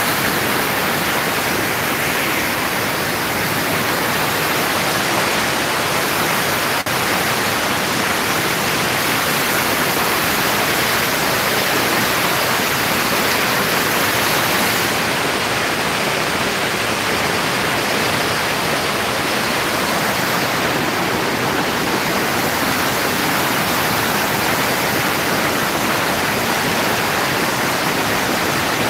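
Mountain river rushing over boulders in white-water rapids, a loud, steady wash of water noise.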